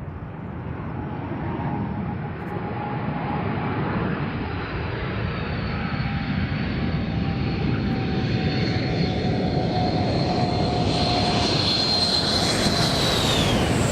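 Sukhoi Su-24M's twin turbojet engines growing steadily louder as the jet approaches, with a high whine that drops in pitch near the end as the aircraft passes by.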